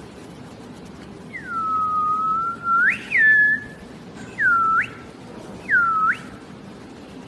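A person whistling four swooping notes, each dipping in pitch and then sliding sharply up. The first is long and the other three are short.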